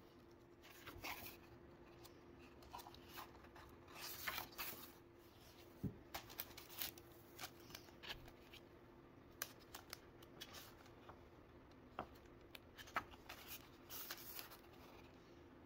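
Quiet paper handling: glossy art prints and cards are slid against each other and out of a paper envelope, then an artbook is opened. The result is soft rustles and slides with scattered light taps, a few of them sharper.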